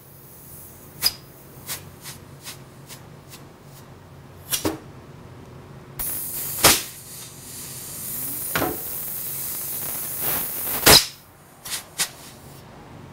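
Pneumatic cylinders cycling the motor head of a drill press on a test cycle. First come a few sharp knocks and clicks. About six seconds in, a steady hiss of compressed air starts with a loud clunk and runs for about five seconds, then stops with a loud knock.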